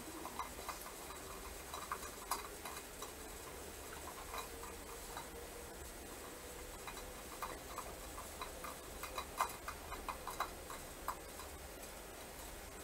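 Quiet free-improvised ensemble music made of sparse, irregular small clicks and ticks, thicker in the second half, over a faint held tone that drops away about two-thirds of the way through.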